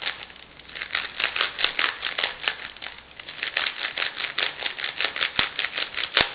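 Plastic 3x3 Rubik's cube being turned rapidly by hand, its layers clicking at about seven clicks a second with short pauses. The cube has just been sprayed with lubricant inside, and the turning works the lube in so the layers get smoother.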